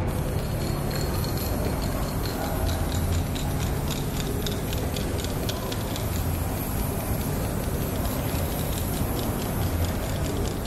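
Aerosol spray-paint can hissing as paint is sprayed through a stencil onto a wall, with a quick run of light ticks for a few seconds in the middle. A steady low rumble runs underneath.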